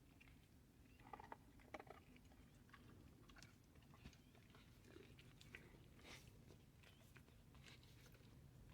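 Near silence: faint, irregular clicks and crunches, like soft chewing, over a low steady hum.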